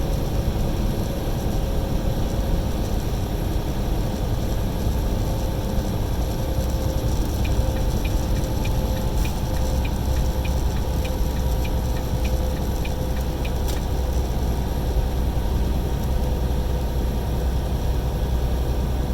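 Steady engine and road noise heard inside a semi-truck's cab while driving at highway speed. Midway a light, regular ticking comes in, about twice a second for several seconds, then stops.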